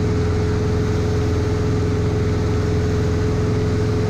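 Single-engine piston light aircraft's engine and propeller droning steadily in flight, heard inside the cockpit, with a steady humming tone running through it.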